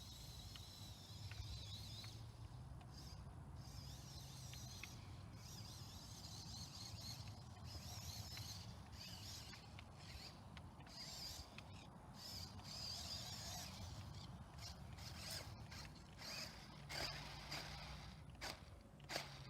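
Small electric RC rock crawler's motor and gearbox whining faintly as it drives, the whine rising and falling with the throttle, with a few clicks and knocks near the end.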